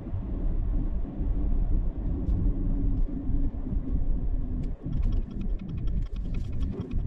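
Vehicle driving, a steady low road and engine rumble heard from inside. In the last couple of seconds a quick run of clicks comes in over it.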